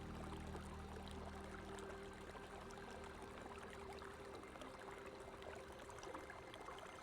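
Running water, a steady even rush. The held low notes of background music fade out over the first few seconds, leaving the water alone.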